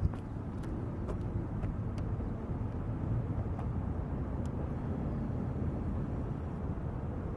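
Buell XB's V-twin engine idling steadily through a Dean Adams RT-XB-1 aftermarket exhaust, a low, even rumble with no revving. A few faint clicks in the first two seconds.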